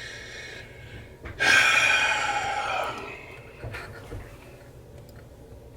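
One long, heavy breath out, starting about a second and a half in and fading over about a second and a half, followed by a few faint small clicks.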